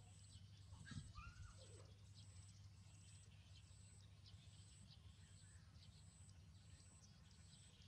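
Near silence: a faint low hum under a faint high pulsing tone that repeats about one and a half times a second, with a brief faint squeaking call about a second in.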